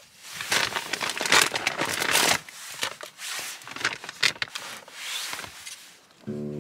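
Plastic food packaging crinkling and rustling in irregular bursts as groceries are handled and packed into woven seagrass baskets. An acoustic guitar starts near the end.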